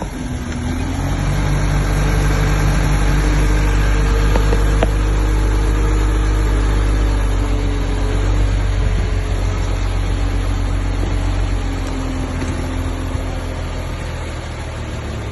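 Bulldozer's diesel engine running steadily and working, its note growing louder over the first two seconds and easing off slightly near the end.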